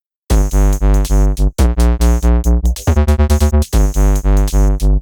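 Electronic background music starting about a quarter second in: pulsing synthesizer chords over a heavy low beat.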